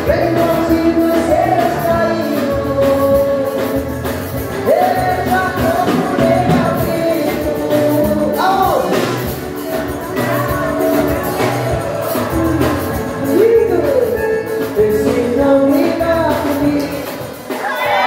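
A live dance band playing amplified in a hall: a lead singer's melody with held notes over a steady dance beat.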